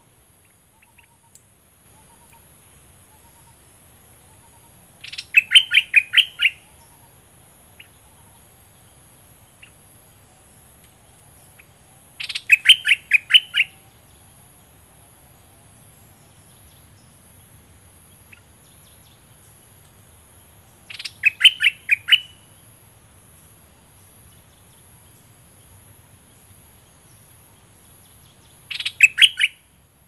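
A bulbul singing four short phrases, each a quick run of about half a dozen clear notes lasting a second or so, repeated roughly every eight seconds, over a faint steady high hiss.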